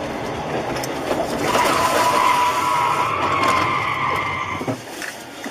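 Vehicle noise with a steady, high-pitched squeal. The squeal starts about a second and a half in, lasts about three seconds, then stops.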